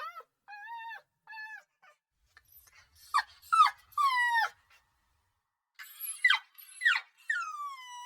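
Puppy crying: a series of short, high-pitched whimpering cries. A few softer ones come first, then louder cries that slide downward in pitch, the last one drawn out.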